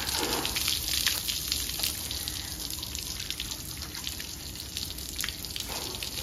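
Water from a garden hose pouring over a Shih Tzu's soapy coat and splashing and dripping onto a wooden table, with many small splashes and drips throughout.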